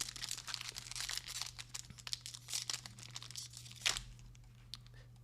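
Foil trading-card pack being torn open: dense crinkling and tearing of the wrapper for about four seconds, ending in one sharper snap, then a few faint ticks.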